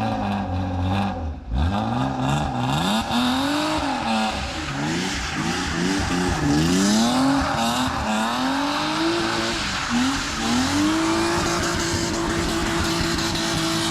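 Car engine revving up and down repeatedly while the rear tires spin and squeal, the tires smoking; near the end the engine is held at steady high revs.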